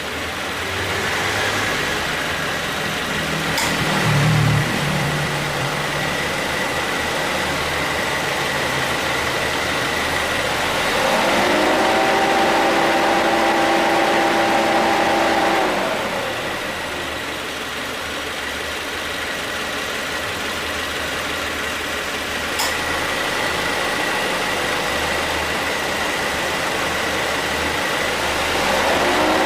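2017 Subaru Forester engine idling with the air conditioning on, plus a faint steady whine. About 11 seconds in, the A/C compressor cuts in: a set of steady tones rises into place and the sound gets louder for about five seconds, then drops away. The compressor cuts in again near the end. It runs with no abnormal noise after its repair.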